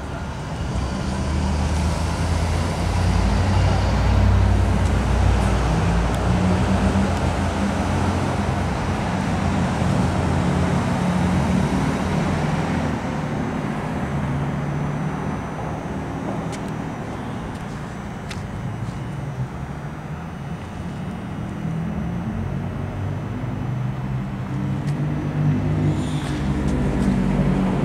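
Road vehicle noise: a steady low rumble with noise spread above it, easing a little midway and growing louder again near the end, with a few faint clicks.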